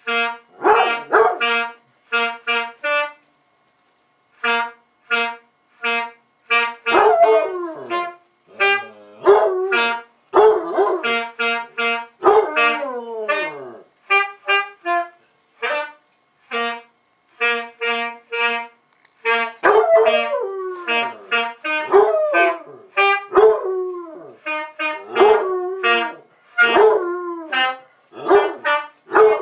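A saxophone playing runs of short, detached notes while a basset hound howls along. From about seven seconds in, the dog's long howls keep breaking in over the notes, each sliding down in pitch.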